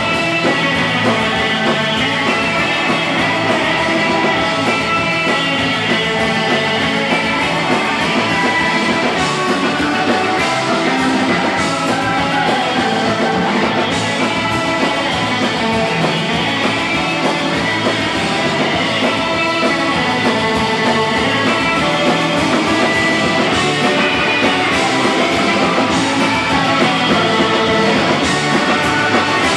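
Live surf-rock band playing an instrumental: electric guitars over a driving drum kit, loud and unbroken.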